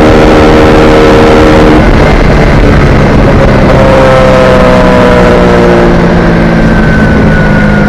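Honda 50 cc automatic engine on a motorized bicycle, running loud at speed. Its pitch shifts about two seconds in, then slowly drifts lower.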